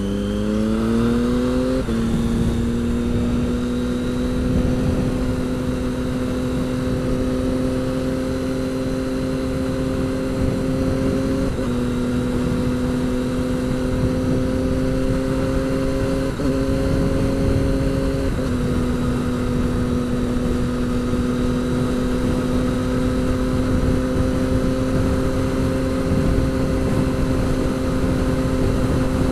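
Motorcycle engine rising in revs under acceleration for about two seconds, shifting up, then holding steady cruising revs at highway speed, with brief slight dips in revs about 11, 16 and 18 seconds in. A continuous rush of wind and road noise runs beneath it.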